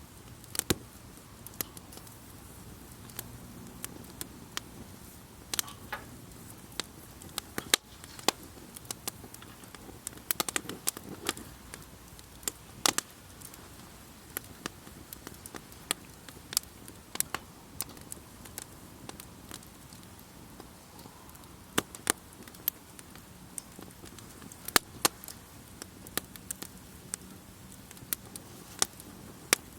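Wood campfire crackling: irregular sharp pops and snaps, some bunched close together, over a faint steady hiss.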